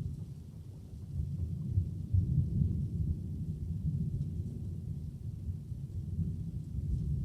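Thunder rumbling low and long, swelling about a second in and rolling on, with rain hissing faintly.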